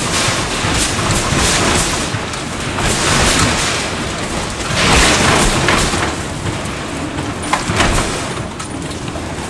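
Six-story cold-formed steel building shaking on a shake table during an earthquake simulation: rumbling and rattling noise that surges and fades several times, loudest about five seconds in, with a few sharp bangs near the end.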